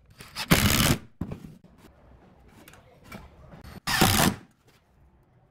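Cordless impact driver running in two short bursts, each about half a second, driving screws through a steel hinge into a pine board.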